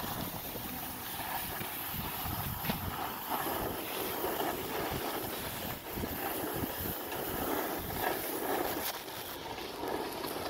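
Wind buffeting the microphone over the steady scraping hiss of snowboards sliding down groomed snow.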